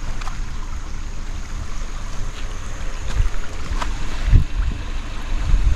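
Car driving slowly over a rough, waterlogged dirt road: a steady low rumble with a few thumps from bumps about three to four and a half seconds in.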